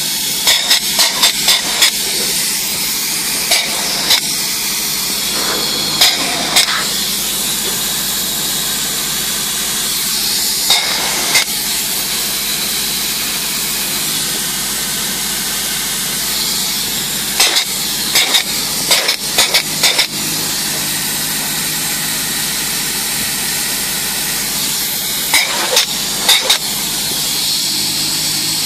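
Spray foam insulation gun spraying, a steady hiss. Short clusters of sharp clicks break in several times, near the start, around halfway and near the end.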